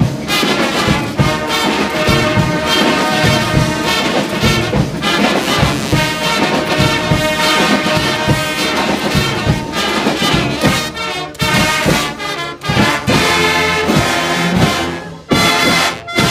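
A massed brass street band of over a hundred players playing loud and upbeat with a steady beat, horns and trombones together. In the last few seconds the band plays short, separated accented hits, ending on a final hit.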